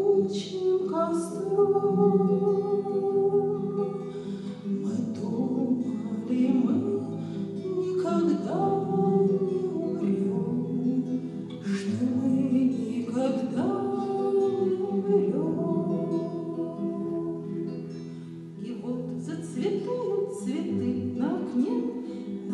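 A woman singing to her own classical guitar accompaniment, with held, gliding sung notes over strummed chords.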